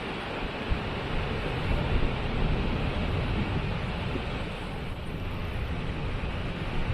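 Waterfall rushing: a steady, even wash of falling water, with a deeper rumble that strengthens about a second in.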